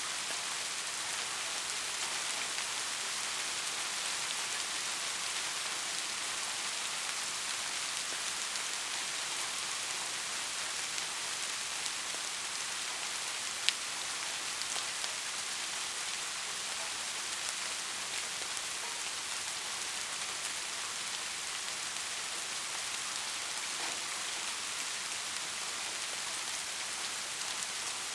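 Steady rain falling, an even hiss with no thunder, and one sharp tick about halfway through.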